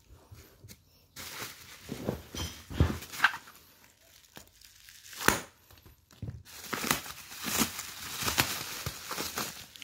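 Thin black plastic bag wrapping crinkling and tearing as it is cut with scissors and pulled open by hand, in irregular bursts with a sharp crack about five seconds in and denser crinkling after that.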